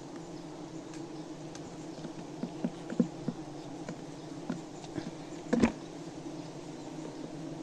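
Steady droning buzz of a wild honeybee colony around its comb. Over it come a few clicks and knocks from the comb being cut and handled over a plastic bucket, the loudest about five and a half seconds in.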